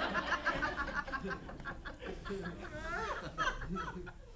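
Audience laughing and chuckling, in short repeated bursts, with some voices murmuring among the laughter.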